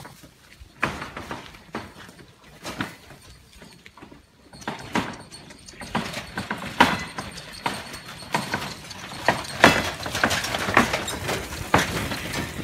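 Several stray dogs eating together from a metal bowl on gravel: irregular clinks and clicks of mouths and food against the bowl, sparse at first and much busier from about halfway through.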